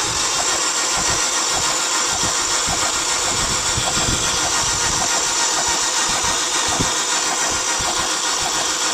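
Holden Astra's starter motor cranking the petrol engine steadily and at length without it catching, with a faint regular pulse through the cranking: the hard-starting fault being tested, with the spark checked during cranking.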